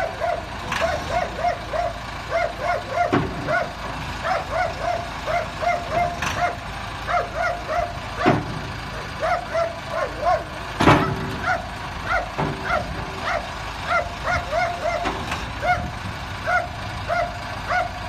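A dog barking repeatedly, two or three short barks a second, over the steady running of a backhoe loader's engine. A few sharp clanks stand out, the loudest about eleven seconds in.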